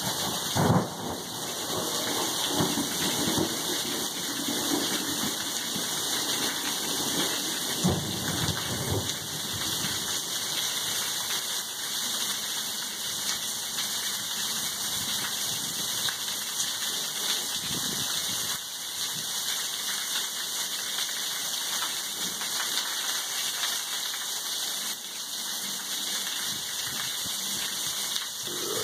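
Heavy rain mixed with small hail falling steadily on the yard and porch, a constant hiss. A few low rumbles come through in the first ten seconds.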